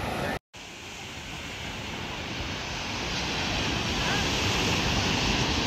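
Sea surf washing on a beach, with wind noise on the microphone. The sound cuts out for a moment about half a second in, then the surf comes back and grows steadily louder.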